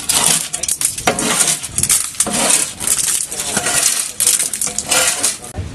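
Long-handled scraper working a mussel-encrusted boat hull, scraping off the shells in repeated strokes about two a second, with shells clinking as they break away.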